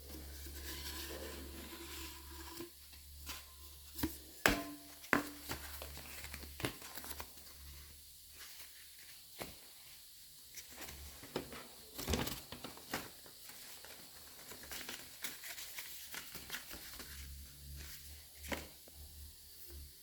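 Handling noises from unboxing: crinkling and tearing of packaging with scattered clicks and knocks, the loudest a sharp knock about four and a half seconds in and another about twelve seconds in.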